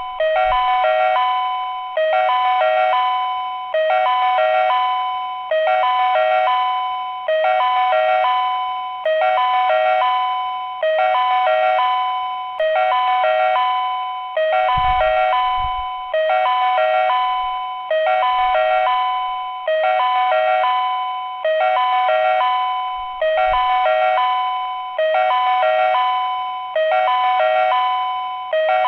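Train-approach warning chime on a Japanese railway platform: an electronic two-note chime alternating between two tones, repeating about every 1.7 seconds without a break, warning that a train is coming.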